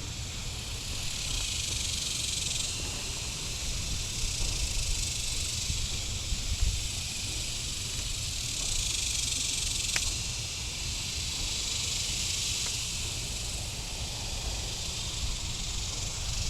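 Cicadas droning: a steady high buzz that swells and fades in slow waves, over a low rumble. One sharp click comes about ten seconds in.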